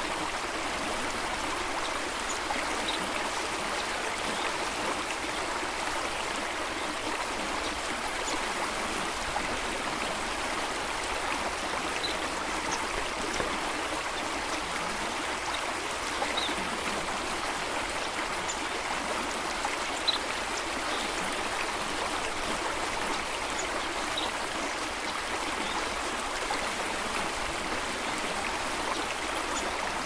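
Water in a stream flowing steadily and evenly, with a few faint, very short high-pitched sounds dotted through it every few seconds.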